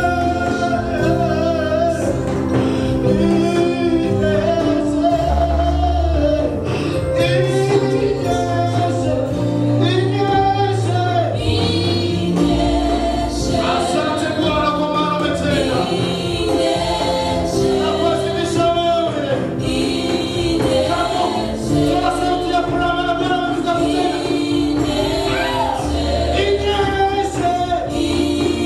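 Live gospel worship song: a man leading the singing into a microphone with women's backing vocals joining in, over continuous instrumental accompaniment.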